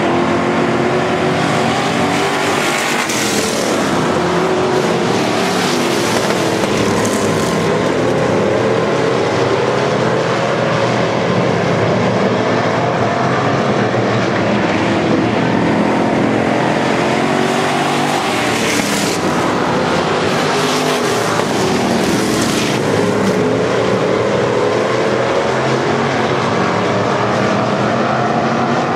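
Hobby stock dirt-track race cars running at racing speed, their engines rising and falling in pitch again and again as they circle the oval.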